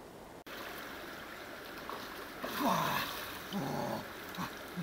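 River water flowing and lapping around a person wading waist-deep, starting after a brief dropout near the start. A little past halfway, two short voice-like sounds falling in pitch stand out, the first with a louder rush of water.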